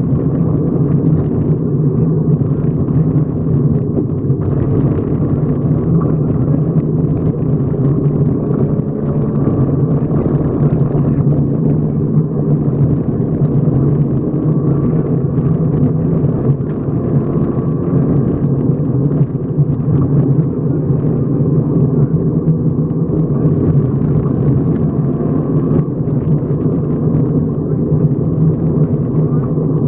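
Subaru rally car's flat-four engine pulling hard at high revs, heard from inside the cabin at speed on a gravel stage, with a hiss of gravel and tyre noise that comes and goes.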